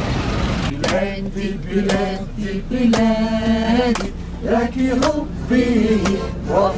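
A group of men singing together without instruments, with hand claps about once a second. Street traffic noise is heard briefly before the singing starts, under a second in.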